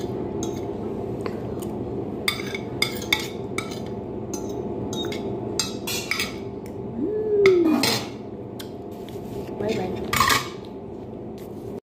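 Metal spoon and fork clinking and scraping on a plate while eating, in many sharp irregular clicks over a steady low hum. A short rising-and-falling tone comes about seven seconds in, and a louder scrape about ten seconds in as the plate is moved.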